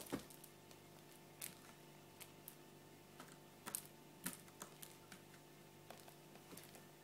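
Faint, irregular light clicks and scuffs as a Maine Coon kitten bats and grabs at a wand toy's ball on a carpeted cat tree, over a low steady room hum.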